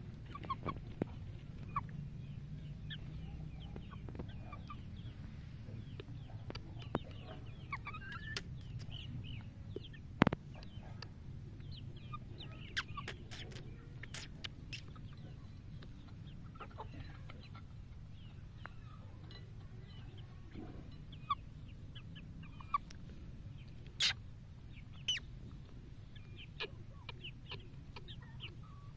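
Young chickens clucking and chirping in short, scattered calls, with a few sharp clicks, the loudest about ten seconds in.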